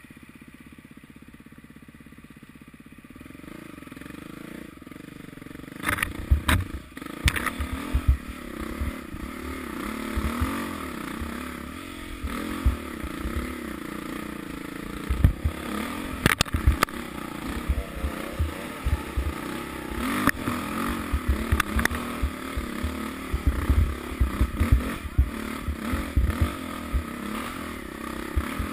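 Off-road motorbike engine running along a rough trail, its pitch rising and falling with the throttle and picking up over the first few seconds. From about six seconds in, frequent knocks and clatter from the bike jolting over bumps.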